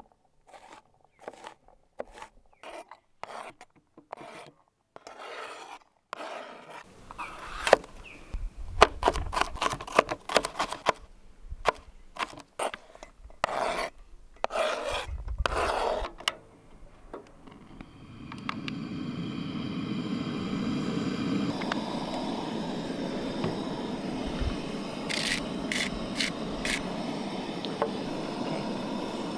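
Knife chopping on a cutting board in quick, even strokes, then louder knocks and scraping of food and utensils. About halfway through, food starts sizzling steadily in a frying pan.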